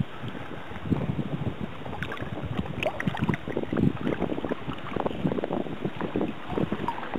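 Sea kayak being paddled across open water: paddle blades dipping and splashing alongside the hull, under wind gusting on the microphone.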